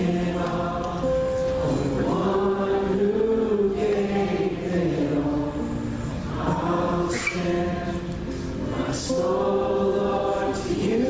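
Congregation and worship team singing a slow worship song together over musical accompaniment, holding long notes in drawn-out phrases.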